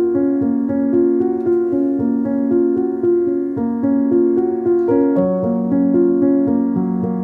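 Background music led by piano or electric keyboard, with notes held and changing every half second or so over a steady low pulse.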